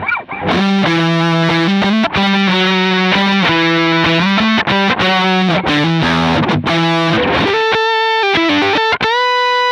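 Electric guitar played through a Kemper fuzz with an octave effect: sustained, heavily distorted notes. The pitch slides down and back up partway through as the octave setting is moved, then jumps to a higher held note near the end.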